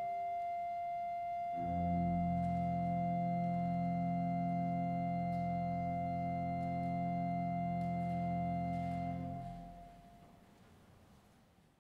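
Church organ holding a high sustained note, then a full closing chord with deep bass entering about a second and a half in and held steady for about eight seconds. The chord releases near the end, the top note lingering a moment longer before the sound dies away.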